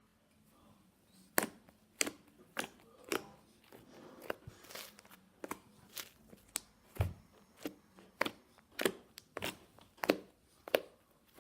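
Fluffy slime being squeezed and pressed by hand, giving a run of sharp crackling pops, roughly one every half second or so, starting about a second and a half in.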